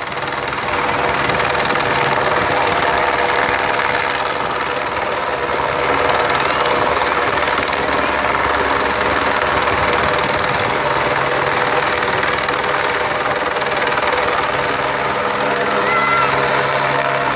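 California Highway Patrol helicopter coming in to land, its turbine and rotor running loudly and steadily.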